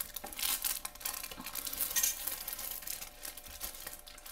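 Thin, flimsy clear plastic cover film crinkling and rustling as hands smooth and slide it flat over a diamond painting canvas, with sharper crackles about two seconds in.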